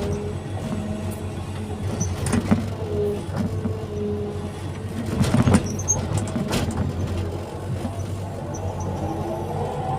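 Hydraulic excavator working: its diesel engine runs steadily under a wavering hydraulic whine, with a few sharp knocks, the loudest about five and a half seconds in.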